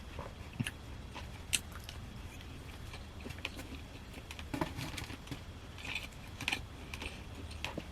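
A person eating: chewing and biting, with scattered sharp clicks and taps over a steady low hum.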